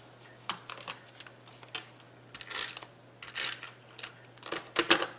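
Cardstock pieces being handled and glued down by hand: scattered light taps and clicks with a few short rustling scrapes of paper, and a louder cluster of taps near the end.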